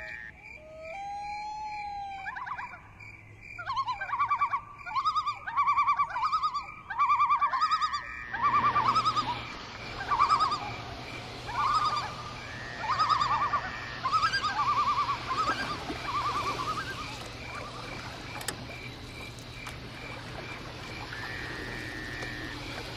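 Bird-like calls: a series of short chirped calls repeating about once a second, fading out after about sixteen seconds. A faint, evenly pulsing high tone runs beneath them, and from about eight seconds in a low hum and hiss are added.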